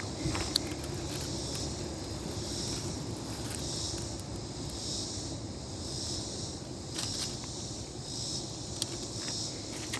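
Woodland ambience: a high insect chorus swelling and fading about once a second over a steady low rumble, with scattered small clicks.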